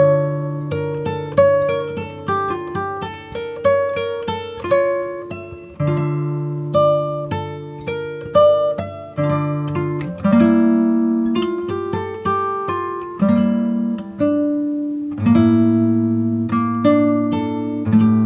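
Background music on a plucked string instrument like an acoustic guitar: a melody of picked notes that ring and fade, over lower held notes.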